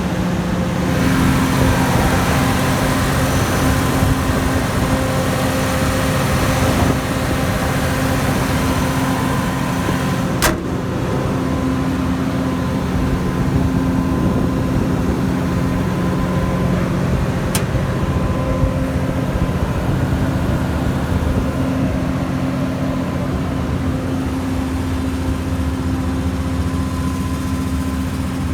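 The Perkins diesel engine of a 115 kW generator set running at a steady pitch. A couple of brief clicks are heard about ten and seventeen seconds in.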